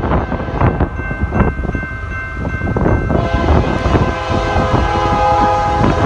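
Freight locomotive's air horn sounding a multi-note chord over the heavy rumble of a passing freight train, with wind buffeting the microphone. The horn grows louder about three seconds in.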